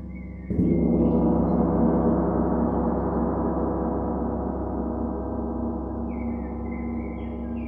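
Large gong struck once about half a second in, then ringing on with many overlapping tones that slowly fade, over the still-sounding ring of an earlier stroke.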